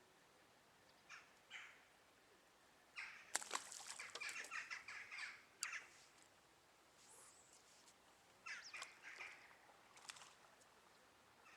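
Birds calling: a couple of short harsh calls, then a longer run of rapid calls from about three to six seconds in, and another run near the end.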